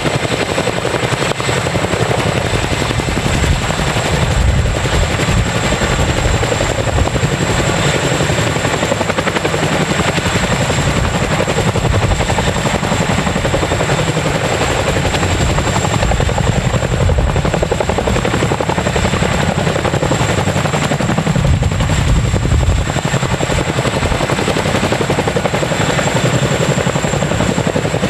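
Boeing CH-47 Chinook tandem-rotor helicopter hovering with a Humvee slung beneath it: the fast beat of its two rotors and the running of its twin turbine engines, loud and steady, with a thin high whine over the top.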